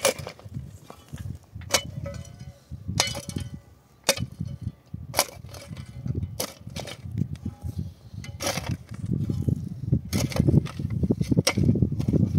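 Metal shovel blade striking and digging into dry, stony soil, with sharp irregular strikes about a second or more apart. A low rumbling noise grows louder over the last few seconds.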